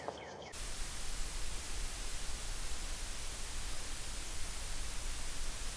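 Steady, even hiss like static, starting abruptly about half a second in.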